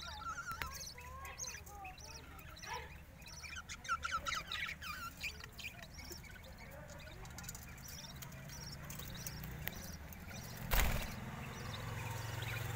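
Budgerigars chirping: a few quick rising chirps in the first second, then rapid chattering from about three to five and a half seconds in. Near the end comes a single loud thump, followed by a steady low hum.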